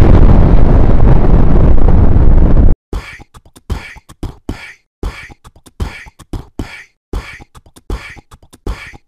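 A loud, sustained explosion rumble that cuts off abruptly near three seconds in. It is followed by a beatboxed rhythm of short vocal drum hits, three or four a second.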